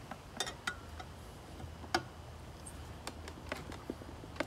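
Irregular sharp metal clicks and taps, about nine of them, from a lug wrench and lug nuts being worked at a car wheel.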